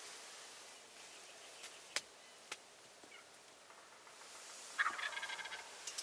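A wild turkey tom gobbling once, a rapid rattling call about five seconds in. Two faint sharp clicks come earlier.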